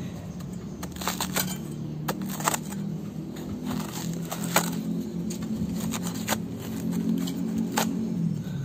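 A machete blade cutting and scraping into the soft, fibrous core of a cut banana stem to hollow it out: irregular sharp clicks and crunches, over a steady low hum.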